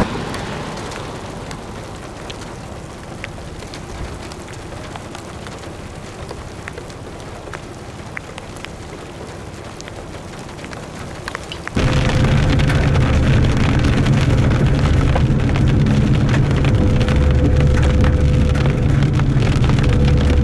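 Rain with scattered drops ticking. A little over halfway through, a much louder steady noise with a low hum cuts in suddenly.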